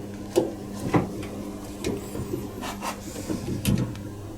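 Plastic dishwasher rack parts being handled and moved: a series of separate clicks and knocks with light rubbing between them, over a steady low hum.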